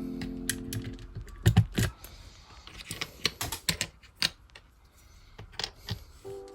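Keys clacking on a keyboard with ALPS key switches and old-style keycaps on adapters: a quick cluster of loud clacks about a second and a half in, then scattered single clacks. Background music fades out at the start and comes back near the end.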